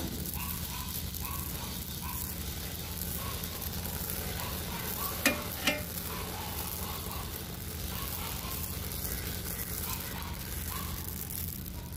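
Amaranth seeds dry-roasting and popping in a large iron wok, rubbed around the metal with a cotton cloth: a steady hiss with light stirring strokes. Two sharp clicks stand out a little before halfway.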